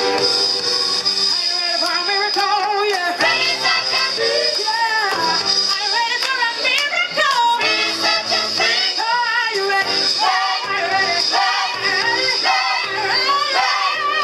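Choir singing, with a woman's lead voice through a microphone and loudspeaker over the group's vocal harmonies.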